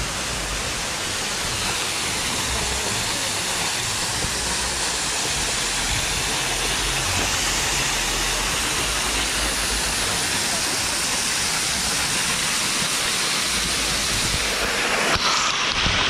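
Small waterfall pouring and splashing over rocks: a steady rush of falling water that grows slightly louder as it gets closer. About fifteen seconds in, the falling water starts spattering directly onto the microphone.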